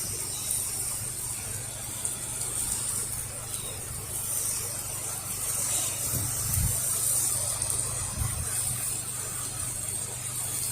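Pressure washer running steadily, its engine giving a low hum under the high hiss of water spraying from the wand.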